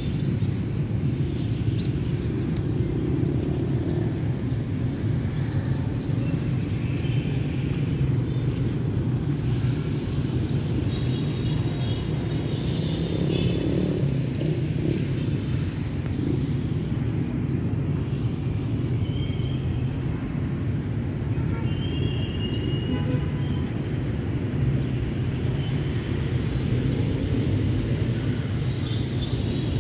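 A steady low rumble, with faint short high chirps now and then.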